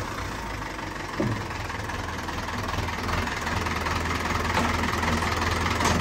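HMT 5911 tractor's three-cylinder diesel engine idling with a steady low knocking hum, growing gradually louder. A short falling tone sounds about a second in.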